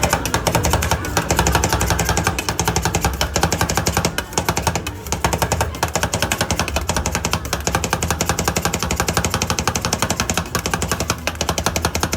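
Rapid, rhythmic metal clacking of spatulas chopping and spreading ice cream mix on a rolled-ice-cream cold plate, with two short pauses partway through, over a steady low hum.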